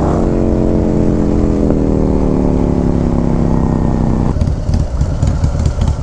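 Harley-Davidson Street Glide's Milwaukee-Eight 135 V-twin under way, its engine note falling slowly as the bike slows. About four seconds in the steady note cuts out and turns into a low, uneven rumble.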